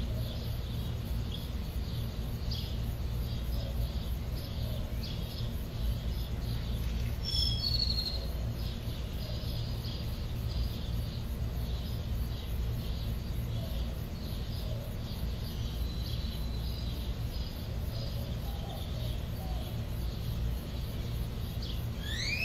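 Outdoor nature ambience: a steady low rumble under faint, rapid high chirping like insects, with a brief high chirp about seven seconds in.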